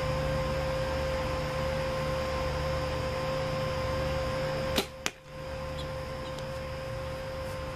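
An arrow shot from a bow striking a milk-jug target: two sharp smacks about a quarter second apart, nearly five seconds in, over a steady hum.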